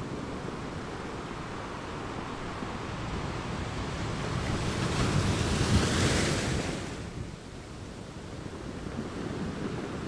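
Sea surf washing in steadily, swelling to its loudest as a wave breaks a little past the middle, then dropping off suddenly before building again near the end.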